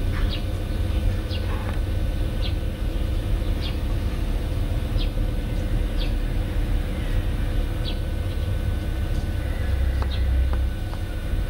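Car driving on a rough unpaved road, heard from inside the cabin: a steady low engine and road rumble, with short high chirps about once a second.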